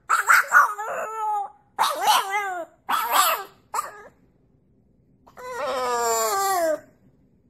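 French bulldog puppy howling: a run of short howls with wavering pitch, then after a pause one longer howl that slides down in pitch.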